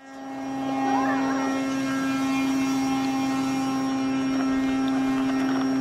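Model airplane's electric motor and propeller running at a steady speed, a constant hum that fades in over the first second and holds level.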